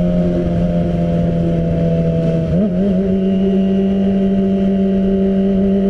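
Kawasaki ZX-25R's 250 cc inline four-cylinder engine running through an Arrow aftermarket exhaust while the bike is ridden at steady, moderate revs. Its note holds steady, then wavers and settles slightly higher about two and a half seconds in as the revs pick up a little.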